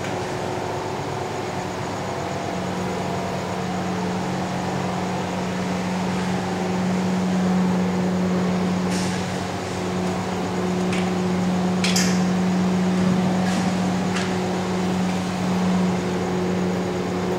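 Steady low mechanical hum of running machinery, with a few short clicks in the second half.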